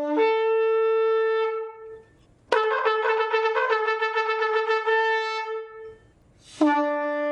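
Shofar (ram's-horn trumpet) sounding three blasts with short pauses between them. The first steps up from a low note to a higher held note. The second wavers and breaks in pitch, and the third is a long steady low note.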